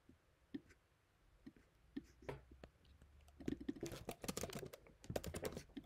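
Typing on a computer keyboard: a few scattered key clicks, then two quick runs of keystrokes about three and a half and five seconds in.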